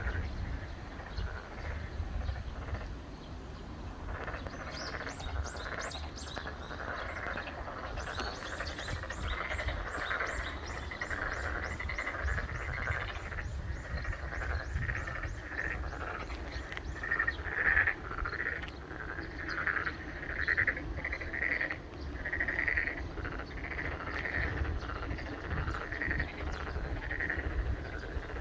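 A chorus of boreal digging frogs (maengkkongi) calling, with repeated bleating calls that grow louder and more frequent in the second half. A fast, high ticking series runs from about 8 to 16 seconds in.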